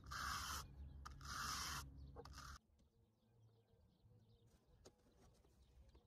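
Aerosol no-rinse coil cleaner sprayed onto RV air-conditioner coils in two short hissing bursts over a low rumble. The sound then drops to near silence about two and a half seconds in.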